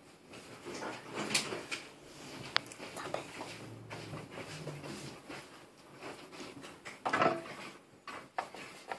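Handling noise as the multimeter and its leads are moved about: scattered knocks, clicks and rustles, with a louder clatter about seven seconds in.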